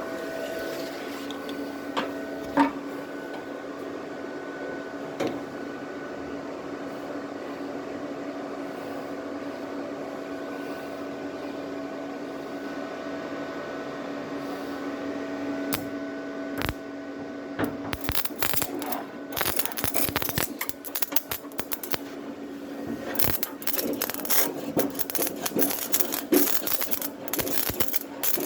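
Small welding machine humming steadily. From about two-thirds of the way in, rapid irregular crackling clicks start as the carbon electrode touches the stretched sheet metal of a car bonnet to shrink it.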